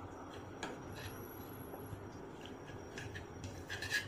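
A spoon stirring jaggery as it cooks in a pan: soft rubbing and scraping with a few faint clicks. Louder clinks of the spoon against the pan come near the end.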